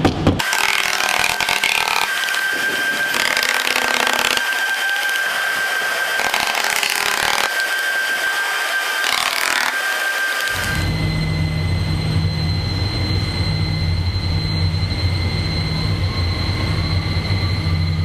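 Steady hiss with a thin high whine, then about eleven seconds in a switch to the steady low hum of the Wall of Wind's large electric test fans running at low speed, with a faint high tone over it.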